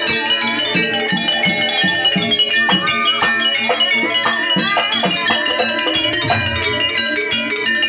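Jaranan dance music from a live ensemble, with many overlapping ringing pitched notes over a steady rhythm and a melody line that bends in pitch about halfway through.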